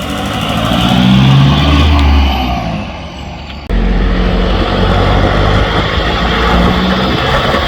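Nissan Navara D22's ZD30 four-cylinder turbo-diesel running through a new stainless straight-through exhaust. It revs up and eases off, then after a sudden cut runs steadily with a deep exhaust rumble.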